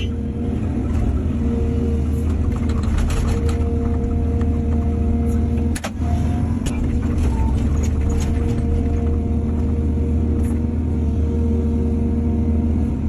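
Excavator's diesel engine running steadily under a continuous low drone, with a high steady whine over it and scattered sharp knocks, the loudest about six seconds in.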